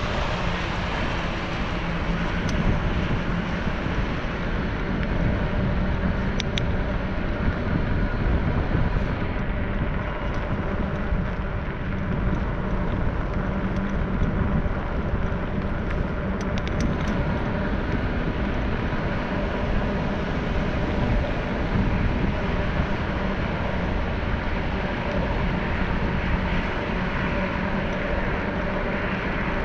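Steady rumbling noise of a camera travelling along a paved trail: wind on the microphone and wheels on asphalt, with a faint steady hum underneath. A few light clicks come through it.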